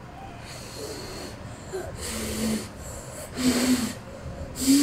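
A child's breath at a forkful of hot spaghetti: four breathy puffs about a second apart, the last three with a short low hum.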